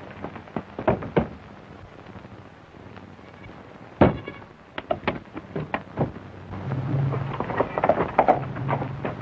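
Knocks and thumps of an action scene on an old film soundtrack, with one sharp, loud bang about four seconds in. Near the end, busier clatter runs over a low hum.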